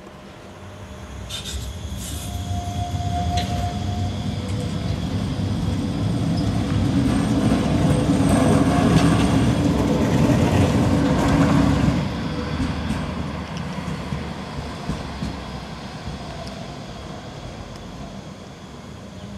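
Leoliner NGT6WL low-floor tram rolling past on its rails. The rumble builds, is loudest between about eight and twelve seconds in, then falls away and fades as the tram moves off.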